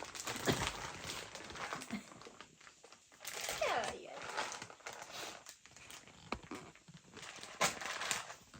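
Plastic packaging and wrappers crinkling and rustling in irregular bursts as a box of chocolates is unpacked by hand.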